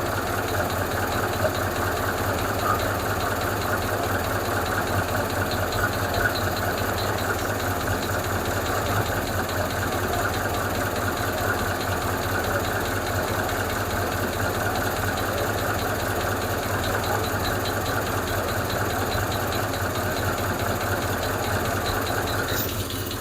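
Hemi V8 idling steadily with a fast, even lifter tick. With the VVT solenoid replaced by an elimination plug the engine runs quieter, but one lifter on one side is still clattering.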